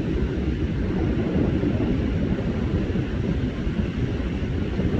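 Wind buffeting the microphone: a steady, loud low rumble with no distinct rhythm or tone.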